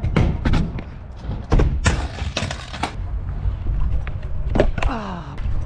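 Pro scooter riding on concrete skatepark ramps: repeated sharp clacks and knocks of the wheels and deck over a low rumble, with a dense burst of clattering and scraping about two seconds in.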